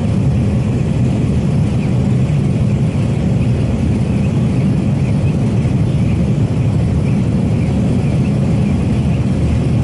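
A heavy engine running steadily at an even speed, a constant low rumble.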